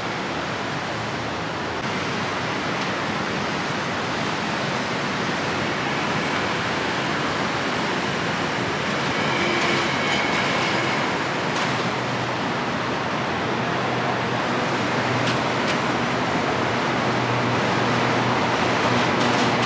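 BTS Skytrain electric train running, a steady rushing noise that grows slightly louder toward the end.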